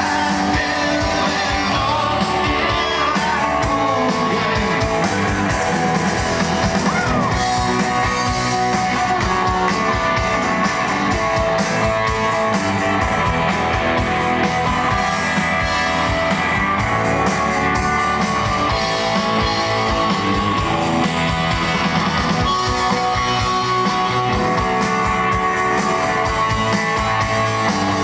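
Rock band playing live: electric guitars, bass and drums with a male singer, loud and steady throughout.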